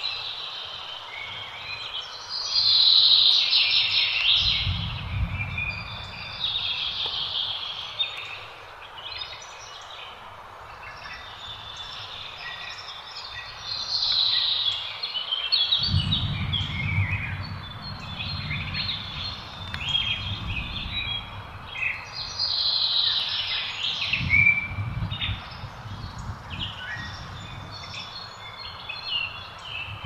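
Several small birds chirping and calling continuously in quick, varied phrases, with three bouts of low rumble under them.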